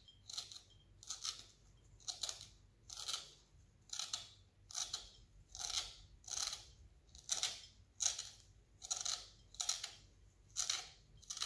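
Citrus zester scraping thin strips of peel off a lemon, in short repeated strokes about twice a second.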